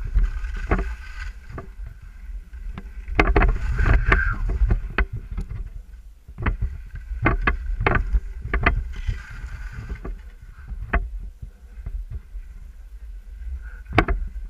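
Skis and poles moving through snow: irregular sharp knocks, clicks and scrapes over wind buffeting the microphone.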